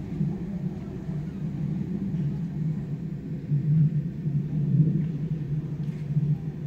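Steady low rumble of a commercial telescopic pool enclosure's sections rolling along their ground tracks as it is pushed open by hand.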